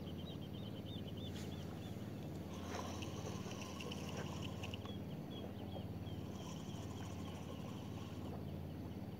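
A steady low motor hum, with short runs of rapid high chirping calls over it in the first second and again from about three to five seconds in.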